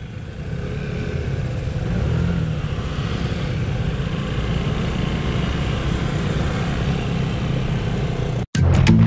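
Vespa motor scooters running with a steady low rumble. Near the end the sound cuts off abruptly and music with a beat starts.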